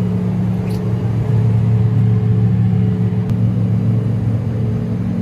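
Steady low hum of a private jet's cabin, with a few pitched tones held unchanged throughout. A light click sounds about a second in.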